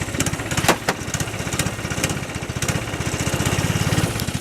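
Small snowmobile engine running steadily, a rapid even beat of firing pulses, with a sharp click a little under a second in.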